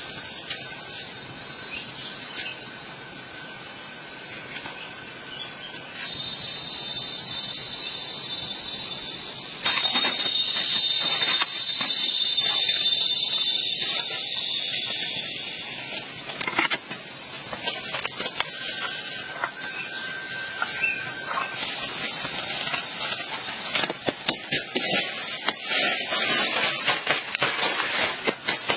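Leaves, sticks and soil being handled and rustled while a forest shelter is built, over a steady high-pitched drone in the first half and a few short falling whistles. Near the end comes a dense run of sharp cracks and clicks as stems are worked and cut.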